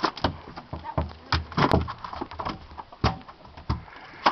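Freshly landed mahi-mahi flopping on a boat deck: a string of irregular thumps and slaps.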